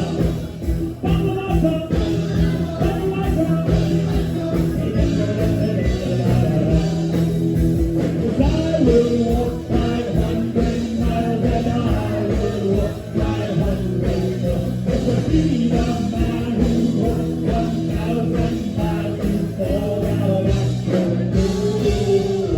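Rock song with a singer over a steady beat.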